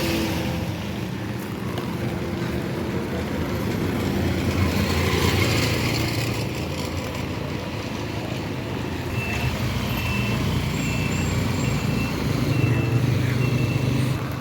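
A motor vehicle running: a steady low engine drone with road noise over it. In the second half a faint high tone sounds in a string of short beeps.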